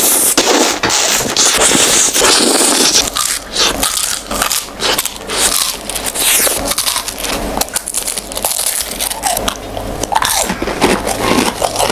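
Close-miked biting and crunching into an ice cream cone and its ice cream, many crisp crunches in quick succession as the cone is chewed.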